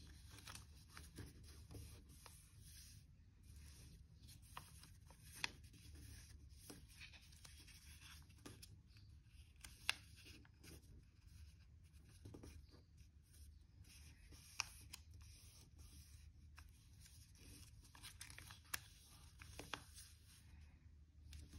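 Faint rustling and rubbing of a sheet of origami paper being folded and creased by hand, with a few sharp little ticks scattered through.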